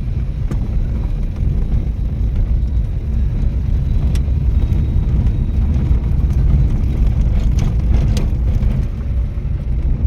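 Steady low rumble of a moving road vehicle, engine and road noise, with a few faint ticks and rattles.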